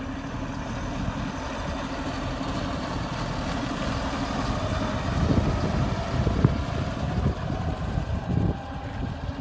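JCB Fastrac 8310 tractor's 8.4-litre diesel engine running as the tractor drives past. It grows louder about halfway through as it passes close, then drops back as it moves away.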